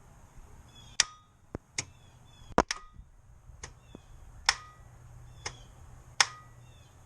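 Ford Focus starter solenoid clicking, about once a second, while the engine does not crank: the no-start fault that the starter is replaced for.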